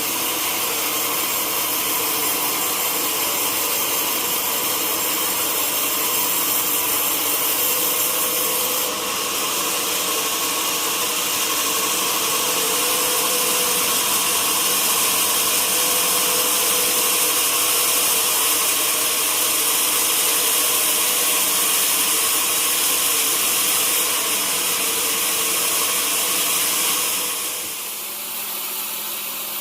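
Sawmill saw cutting through an old teak log, a steady, loud cutting noise. It brightens about nine seconds in and drops away near the end as the cut finishes, leaving the machine running more quietly.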